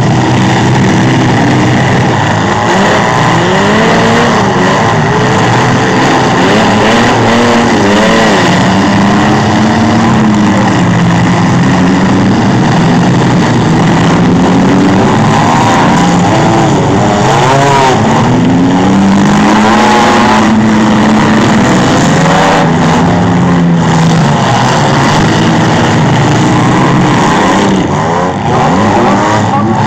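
Engines of several demolition derby trucks, vans and SUVs revving together, their pitch rising and falling again and again as they drive and ram about the pit.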